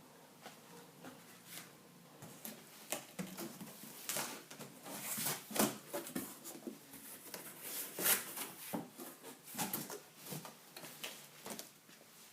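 Packaging being handled, with irregular crinkling, rustling and clicking that is busiest in the middle.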